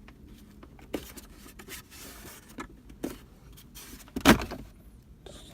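Plastic centre-console trim of a 2008 Mazda 3 being gripped and pulled: a few light clicks and knocks, then one loud snap about four seconds in as a clipped trim piece pops loose.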